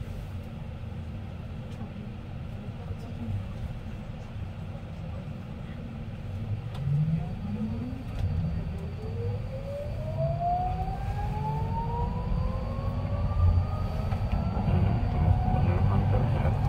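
Subway train pulling away from a station: the electric traction motors whine, rising steadily in pitch from about seven seconds in as the train gathers speed, over a low rumble from the car.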